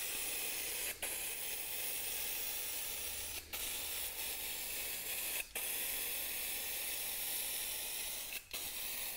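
Aerosol spray-paint can hissing steadily as a light misting coat of metallic paint is sprayed from a distance, with four brief breaks where the nozzle is released.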